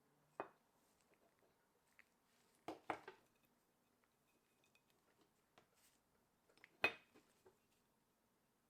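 Near silence broken by a few sharp metallic clinks and knocks of small metal fan parts being handled, once about half a second in, a quick pair near three seconds and the loudest near seven seconds.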